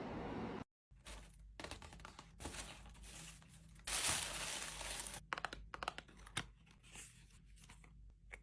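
Packaging paper being handled and unwrapped: irregular crinkling and tearing in bursts, with a few light clicks, the loudest rustle about four seconds in.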